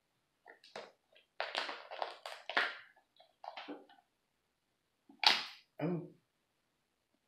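Cooked lobster shell being cracked and snapped apart by hand: a string of short cracks and crunches, the sharpest and loudest about five seconds in.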